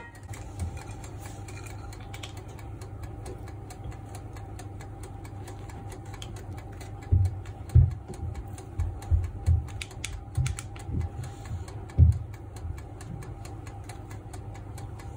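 Kitchen handling noise over a steady low hum: about seven seconds in, a run of soft knocks and taps begins and lasts several seconds, as air-fried plantain slices, kitchen paper and a glass plate are moved about.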